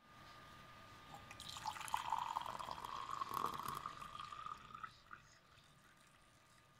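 Hot water poured from a kettle into a ceramic mug, splashing and filling. It starts about a second and a half in and stops about five seconds in, its pitch rising slightly as the mug fills.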